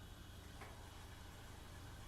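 Quiet apartment room tone: a steady low hum with one faint, short click about half a second in.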